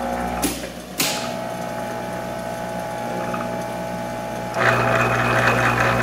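Monarch 10EE lathe running on a test after its spindle drive and gear train were reworked: a sharp click about a second in, then a steady machine hum with several held tones. About four and a half seconds in it steps up to a louder, busier running sound.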